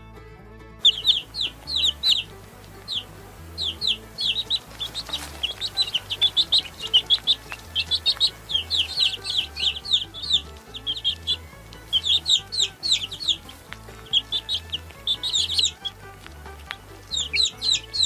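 Chicks peeping: many short, high peeps, each falling in pitch, coming in quick runs of several overlapping birds with brief pauses between runs.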